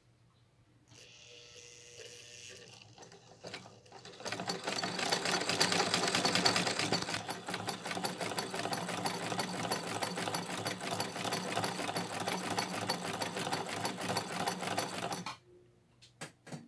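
1950 Vickers sewing machine running fast to wind thread onto a bobbin on its bobbin winder. The rapid, even mechanical clatter starts softly about a second in and runs hard from about four seconds. It stops suddenly near the end, followed by a few clicks.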